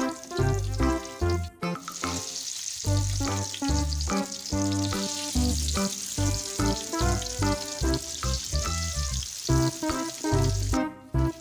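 Battered cempedak fritters deep-frying in hot oil in a wok: a steady sizzle starts about two seconds in and cuts off shortly before the end. Background music with a steady beat plays throughout.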